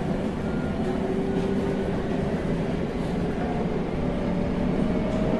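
Senboku Rapid Railway 7000 series VVVF-inverter electric train, heard from inside the car while running: a steady rumble with faint tones, one of which slowly rises in pitch near the end.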